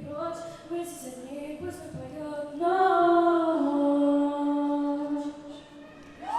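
Unaccompanied singing voices finish a song with a louder closing phrase and a long held final note that fades out. Applause breaks out right at the end.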